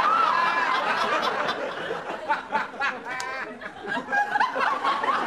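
A person giggling and laughing with wordless, high-pitched vocal sounds that rise and fall.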